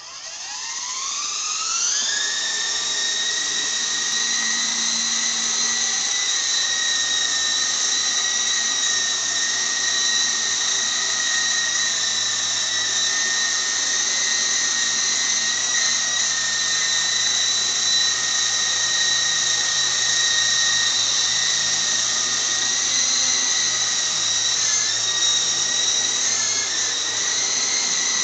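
Blade CX-series coaxial electric RC helicopter's motors and rotors spooling up with a rising whine over the first two seconds, then holding a steady high-pitched whine as it hovers, with brief dips in pitch near the end as the pilot corrects.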